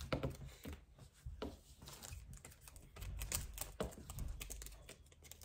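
Pokémon trading cards and card packs being handled on a table: scattered light clicks and taps of card stock against card and tabletop.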